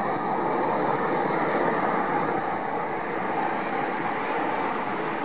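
Boeing 737-800's CFM56-7B turbofan engines running as the jet passes close by on landing: a steady rushing noise that fades slightly toward the end.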